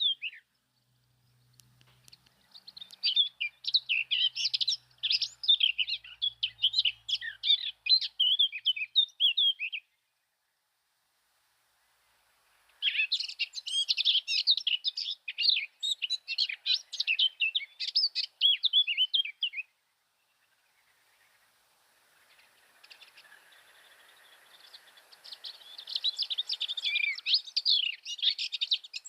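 Blue tits chirping in three long bouts of rapid, high twittering, each several seconds long, separated by abrupt silent breaks.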